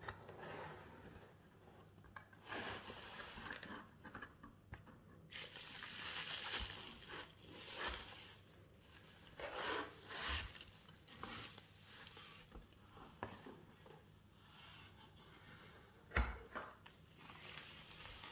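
Bubble wrap around a packaged electric mosquito racket crinkling and rustling as it is handled and slid out of a cardboard box, with cardboard scraping. A sharp knock sounds near the end.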